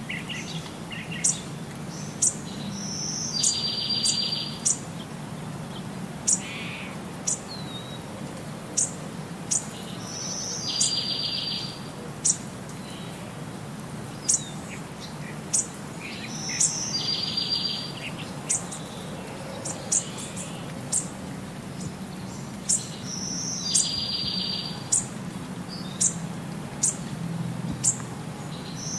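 Bird chirps in a repeating loop: short, sharp high chirps about once a second, with the same longer chirping phrase coming back about every seven seconds, over a faint steady hum.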